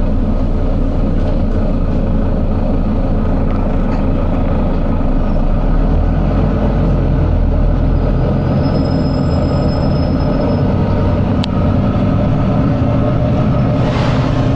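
Volvo B9TL double-deck bus's diesel engine running steadily under way, a heavy low rumble. A single click comes about eleven seconds in, and a short burst of air hiss near the end.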